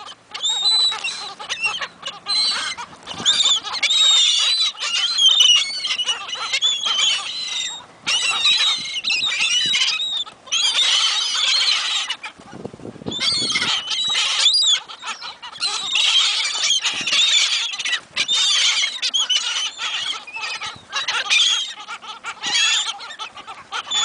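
A flock of gulls calling over food being thrown to them, many high calls overlapping almost without pause, with short lulls.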